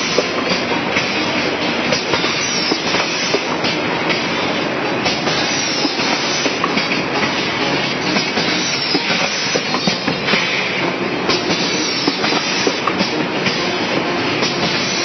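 Automatic sauce-sachet packaging machine running, a steady mechanical clatter full of rapid small clicks and knocks as it fills, seals and cuts sachets.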